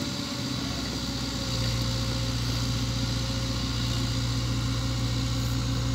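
Diesel engine of a Cat mini excavator running steadily as it digs, with a steady low hum that grows louder about a second and a half in as the machine works.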